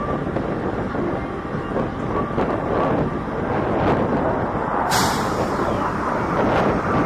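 Aircraft flying past, a loud steady rush of engine noise, with a sharper hiss coming in suddenly about five seconds in.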